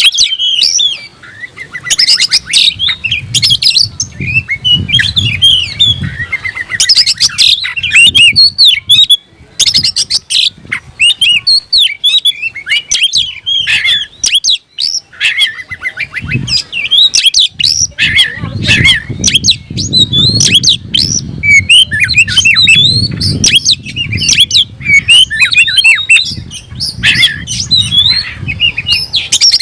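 Oriental magpie-robin (kacer) in full song: a loud, fast, varied run of whistles and chirps that goes on almost without pause, with short breaks about a third and halfway through. This is the agitated song given when it is seeking out a rival.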